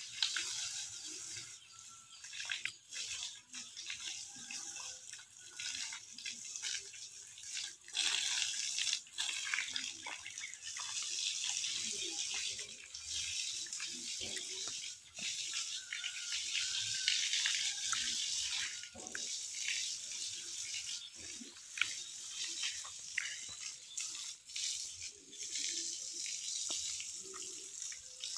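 Water spraying from a garden hose and splashing on a cow's hide and the dirt ground: a steady hiss with many small splashes and patters.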